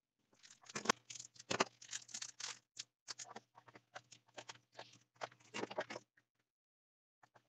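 Hands handling and scraping parts of the modified remote as it is fitted together in its box: a rapid, irregular run of short scrapes and rustles for about six seconds, then a couple of faint clicks.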